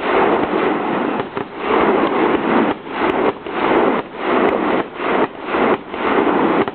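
Fireworks going off in quick succession: a dense crackling and popping that swells and fades about once a second.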